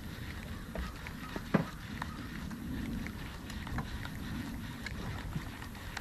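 Low steady rumble of wind and water around a bass boat on the water, with scattered small clicks and knocks; the loudest, a single sharp knock, comes about a second and a half in.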